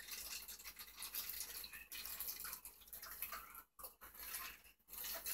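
Man gulping a drink from a glass, with irregular wet swallowing noises broken by two short pauses near the end.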